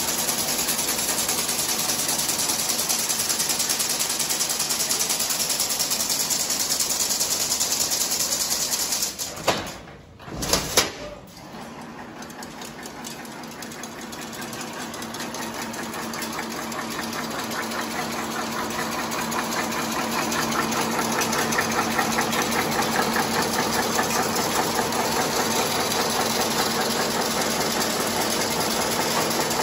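Automatic chain-link fence weaving machine running, a fast, even mechanical rattle as it weaves wire into mesh. About ten seconds in the noise drops away suddenly with a couple of clicks, then builds back up gradually to the same steady level.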